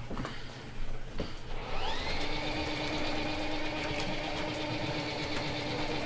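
Electric drain-cleaning cable machine: after a couple of clicks, its motor starts about a second and a half in, winds up to speed with a rising whine, then runs steadily, spinning the cable down the floor drain.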